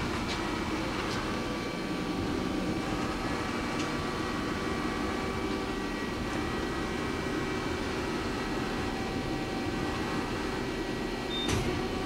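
Hyundai-WIA L400C CNC turning center running with a steady mechanical hum carrying several constant tones.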